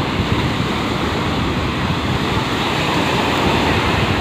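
Sea surf washing onto a beach in a steady, continuous rush, with wind rumbling on the microphone.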